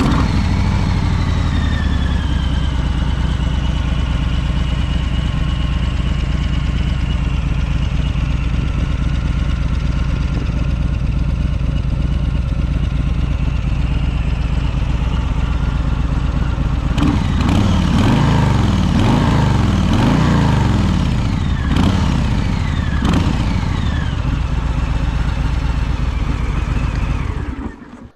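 2020 Harley-Davidson Street Bob's Milwaukee-Eight 107 V-twin, fitted with a Miller exhaust, idling just after a start, its idle settling over the first couple of seconds. About 17 seconds in, a series of throttle blips rev it up and let it fall back. It then idles again until it is switched off shortly before the end.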